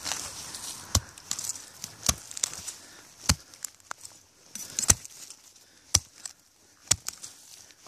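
A tool chopping into an old, decaying tree stump: about six sharp blows, roughly one a second, with wood crumbling and scraping between them.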